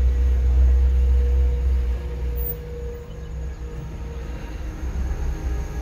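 Low rumble of a car being driven, strong for the first two seconds and then easing off, with a faint steady whine that fades about three seconds in.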